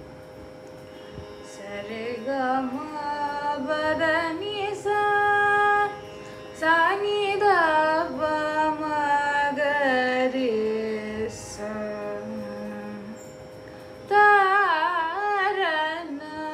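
Young woman singing Carnatic vocal in raga Pantuvarali, phrases full of oscillating gamakas over a steady drone. The voice comes in about a second and a half in, pauses briefly twice, and returns loudest near the end.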